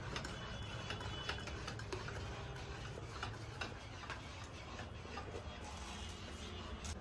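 Wire whisk clicking and scraping against the sides of a bowl as flour is whisked a little at a time into cake batter, a steady run of light ticks.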